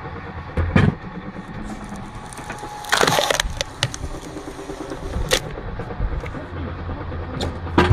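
Wood cracking and splintering as logs are split by a machine: several sharp cracks, and one longer tearing split about three seconds in, over the machine's steady low hum.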